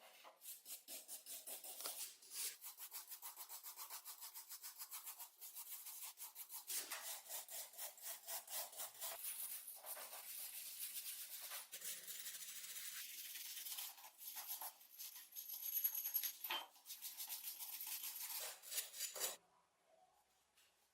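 Rapid back-and-forth abrasive rubbing strokes by hand, several a second, on the rusted scissors' steel, stopping suddenly near the end.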